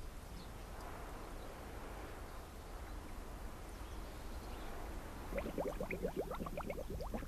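Faint, even outdoor hiss, then water trickling about five seconds in: a quick run of short plinks that rise in pitch, like drops and small bubbles gurgling into shallow water.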